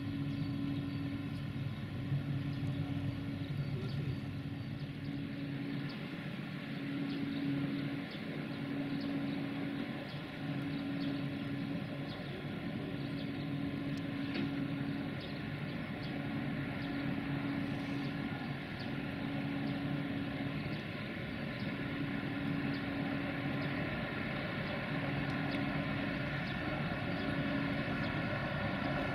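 V63 electric locomotive hauling a freight train slowly past, its motors and fans giving a steady hum with a tone that pulses on and off every second or two, with faint ticks from the wheels.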